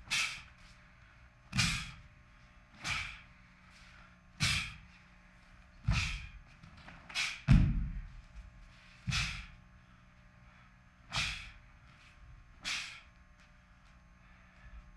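A barefoot taekwondo practitioner performing an ITF pattern. Each kick and strike gives a sharp snap of the cotton uniform and a thud of bare feet on the floor, about ten times at irregular intervals. The loudest, a heavy stamp, comes about halfway through.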